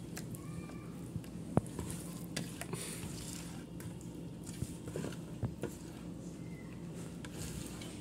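A hand squishing and mixing thick spice paste in a stainless steel bowl, with scattered small clicks and taps against the metal. The sharpest click comes about one and a half seconds in, over a steady low hum.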